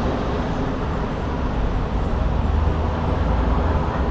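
Steady low rumble of road traffic, with a faint engine hum running through it; it swells a little about halfway through and again near the end.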